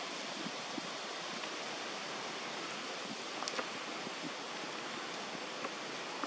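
Steady outdoor background hiss, even and unbroken, with a few faint short clicks, one of them about three and a half seconds in.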